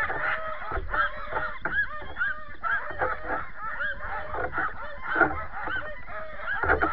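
A team of sled dogs in harness yelping and barking together, many short high calls overlapping without a break: the excited chorus of dogs eager to start a run.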